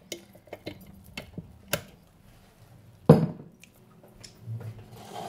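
Kitchen handling sounds on a wooden board and metal salad bowl: a few light clicks and taps, with one sharper knock about three seconds in.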